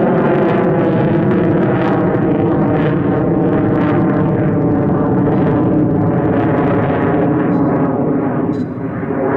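F-16AM Fighting Falcon's Pratt & Whitney F100 turbofan, a loud, steady jet noise with crackle as the fighter manoeuvres overhead, dipping slightly near the end.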